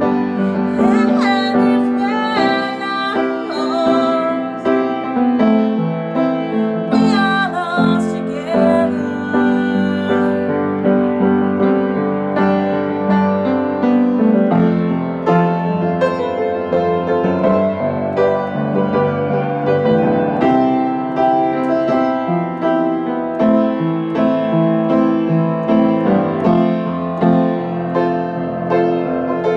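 Upright piano being played: a continuous tune of chords under a melody.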